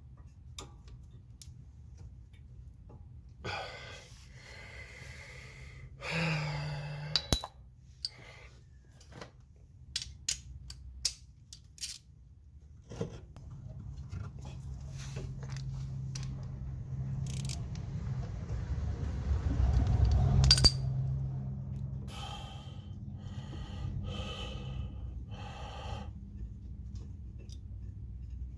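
Scattered metal clinks and knocks of tools and brake parts being handled, with a short scraping rustle. About halfway through, a low hum swells for several seconds, peaks with a sharp clack, then settles lower.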